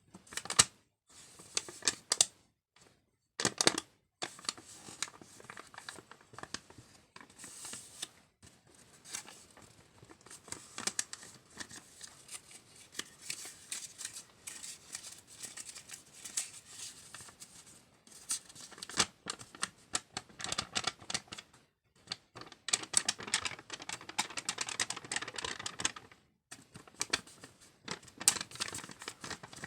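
Paper being crinkled and rubbed close to the microphone: a continuous crackle of small ticks and rustles with a few brief pauses, as an ASMR trigger.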